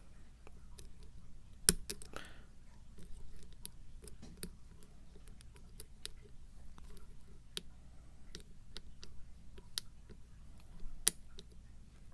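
Lock picking: faint, irregular metallic clicks and light scraping as a hook pick works the pin tumblers of a six-pin challenge lock under tension. Two sharper clicks stand out, one about two seconds in and one near the end.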